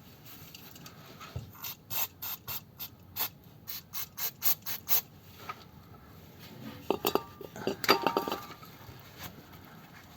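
Ratchet wrench clicking through about a dozen quick strokes, roughly three or four a second, as the nuts of a gearbox rear mount are given a final tightening. A few metallic clinks with a short ring follow near the end.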